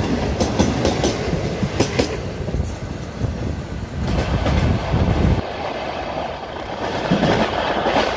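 Passenger train running at speed, heard from an open coach door: a steady rumble with wheels clacking over the rail joints, while a suburban EMU local train rushes past close alongside on the next track. The passing train's noise drops away about five seconds in.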